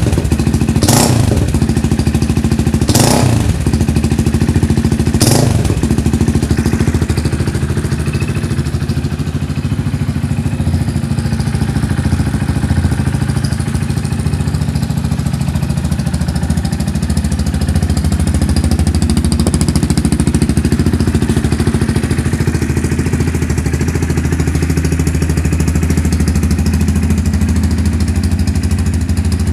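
Yamaha Byson (FZ16) single-cylinder engine breathing through a Nimota CK9 aftermarket muffler: three short throttle blips about two seconds apart in the first six seconds, then steady idling.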